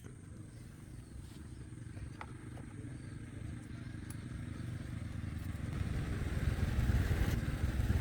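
A vehicle engine running with a steady low hum, growing gradually louder.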